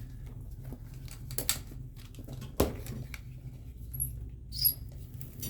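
Scattered handling clicks and knocks, with one sharp knock about two and a half seconds in and a couple of brief high chirps near the end, over a steady low hum.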